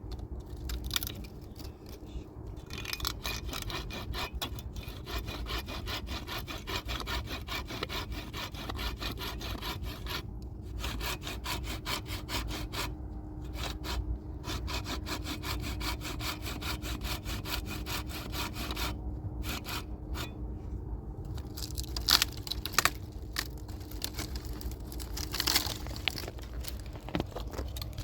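A saw cutting through wood in quick, even back-and-forth strokes, stopping briefly a few times. There are a couple of sharp knocks near the end.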